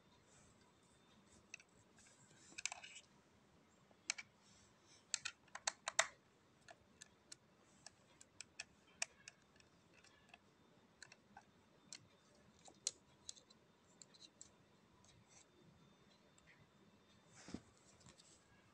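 Faint, irregular clicks and ticks of a hair clipper's small metal blade parts being handled and fitted together by hand, some in quick clusters.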